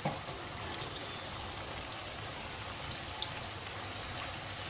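Sauces and sliced onions, chillies, ginger and garlic sizzling in hot oil in a wok: a steady crackling hiss with scattered small pops. A short knock right at the start.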